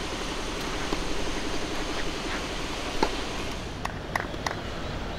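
Steady outdoor background noise, with three short taps close together about four seconds in: a tennis ball bounced on the court before a serve.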